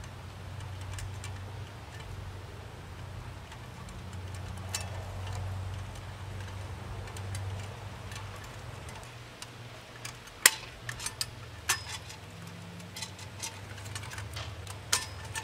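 Scattered sharp clicks and light taps from electrical wires and a metal light-fixture box being handled and joined, sparse at first and more frequent in the second half, over a steady low hum.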